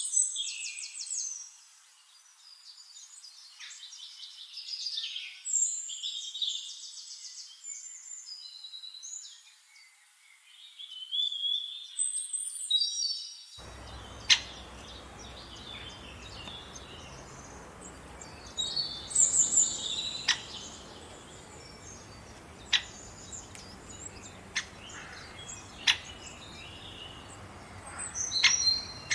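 Several songbirds singing over each other, with fast trills and whistled phrases. About halfway through the sound changes abruptly to another recording with a steady background hiss, where single sharp chips and short song phrases sound now and then.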